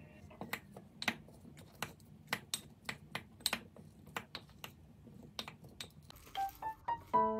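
Wooden spoon tapping and clicking against a ceramic bowl while cherry tomatoes and mozzarella are stirred: irregular light clicks, about two or three a second. Piano music comes in near the end.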